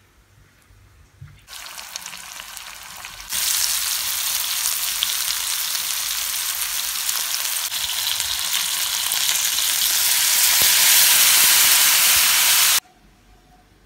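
Floured chicken breast strips sizzling as they fry in olive oil in a pan, a steady hiss. It starts about a second and a half in, gets louder about two seconds later, and cuts off suddenly near the end.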